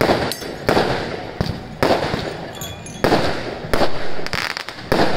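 Aerial firework shells bursting in quick succession, about seven sharp bangs in five seconds, each trailing off briefly.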